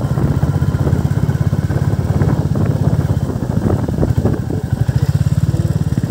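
Royal Enfield Bullet motorcycle's single-cylinder engine running steadily while riding, a close, even stream of low firing pulses.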